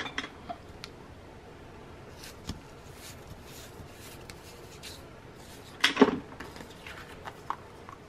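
Cardstock and paper being handled: light clicks, taps and rustles as the flap with the wax seal and brad closure is worked, with a louder crackling rustle about six seconds in.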